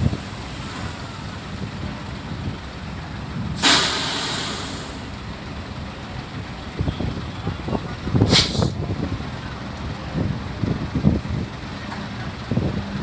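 Heavy diesel vehicles idling with a steady low hum. Compressed air hisses sharply out of an air brake twice, a longer hiss fading away about three and a half seconds in and a shorter one about eight seconds in.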